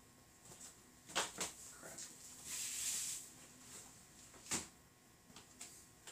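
A few sharp knocks and clicks, with a short rustle about two and a half seconds in: someone handling things and moving about off to the side.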